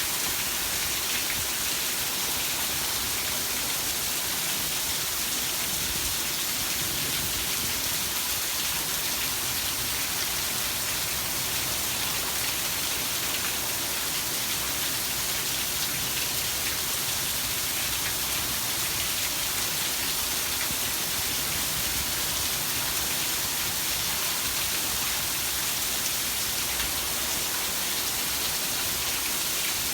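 Heavy rain falling steadily on a surface, an even hiss without breaks.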